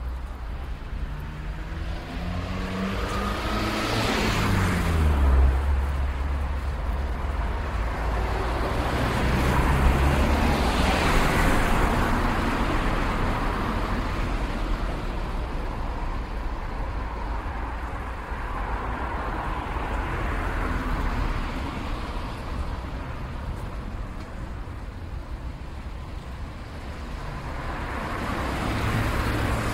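City street traffic: cars passing one after another over a steady low rumble. The first passes about four seconds in, its engine pitch falling as it goes by. More pass around ten and twenty seconds, and another approaches near the end.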